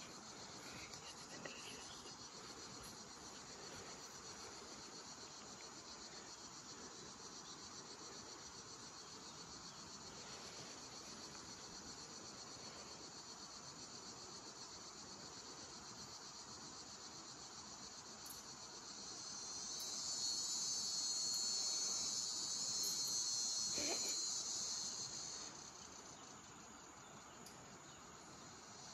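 Steady, high-pitched chorus of insects buzzing, which swells louder for about six seconds two-thirds of the way through, then eases back.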